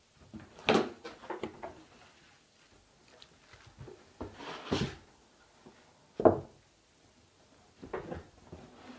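Cardboard carton and plastic wrapping handled while a coffee machine is unpacked: scattered scuffs, rustling and knocks, the loudest a dull thump a little past six seconds in.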